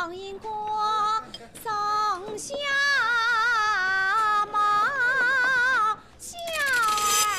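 A woman singing a slow song in Chinese, holding long notes with a wavering vibrato.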